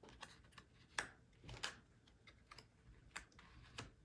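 Playing cards being flipped face up and laid down on a cloth-covered table: a handful of faint, irregular taps and flicks.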